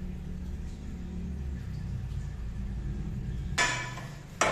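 Two sharp metal-on-metal knocks about a second apart near the end, each ringing briefly: a steel shaft striking a motorcycle fork clamp. A low steady hum runs underneath.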